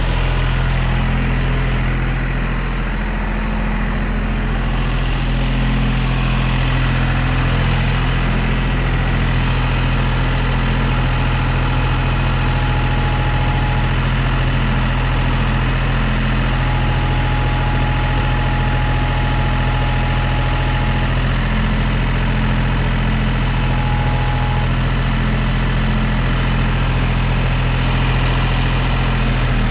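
John Deere tractor engine idling steadily. A thin, faint high tone comes and goes through the middle.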